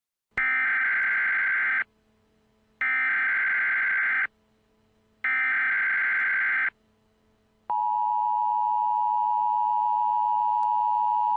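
Emergency Alert System audio: three separate bursts of SAME header data tones, each about a second and a half long, then, about eight seconds in, the steady two-tone EAS attention signal begins and holds.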